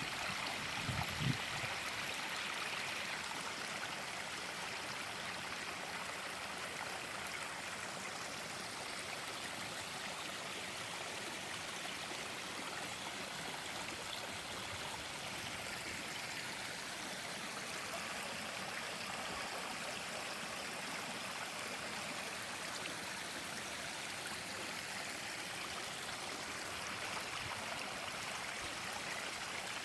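Water of a stream running steadily, with a brief low knock about a second in.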